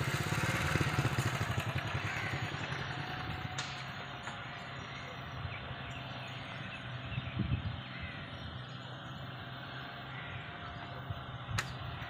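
A small engine running steadily with an even low pulse, fading over the first few seconds, with a faint steady tone above it. Two sharp clicks, one about three and a half seconds in and one near the end.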